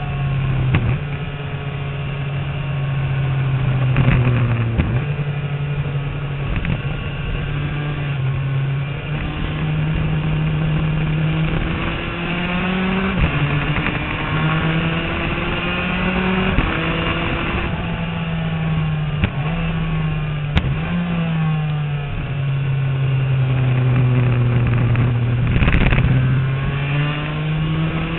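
Aprilia RS250's 250 cc two-stroke V-twin heard onboard under hard racing acceleration. Its note climbs steadily and drops sharply at each of several gear changes.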